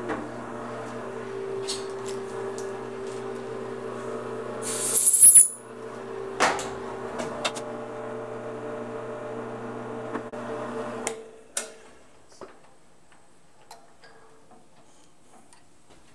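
Drill press motor running steadily while a reamer sizes small dowel-pin holes in a steel part, with a short, loud hiss about five seconds in and a few sharp clicks. The motor is switched off about eleven seconds in and winds down, leaving only a few light ticks.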